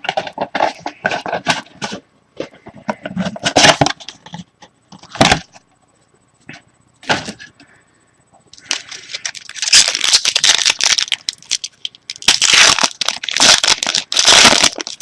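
Trading-card packaging being torn open and crinkled: bursts of crackling and tearing wrapper noise, loudest over the last third.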